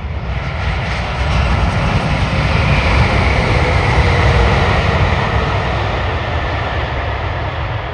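Jet engines of an ANA Boeing 787-8 (Rolls-Royce Trent 1000s) heard as the airliner rolls out along the runway just after touchdown. It is a loud, steady rush of engine noise with a faint high whine, swelling to a peak about three to four seconds in and then easing off.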